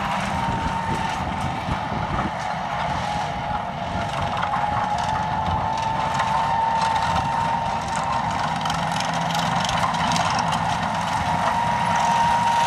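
Hunslet diesel rack locomotive of the Snowdon Mountain Railway working a coach along the line, its engine and drive running with a steady high whine over a low rumble, growing slowly louder as it draws nearer.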